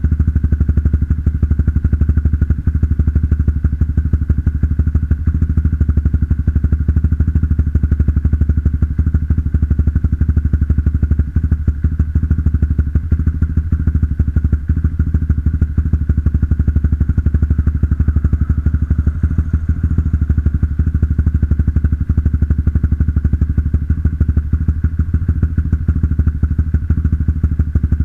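Motorcycle engine idling steadily after a cold start, with an even putter from an aftermarket NOB1 Neo SS exhaust fitted with a dB booster insert.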